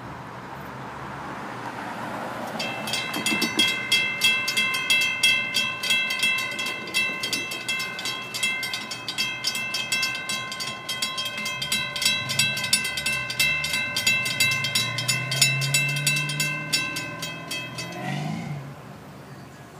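Railroad grade-crossing warning bell ringing in rapid, evenly spaced strikes while the signals flash and the gate arms lower. It cuts off suddenly near the end, once the gates are down, over a low rising hum.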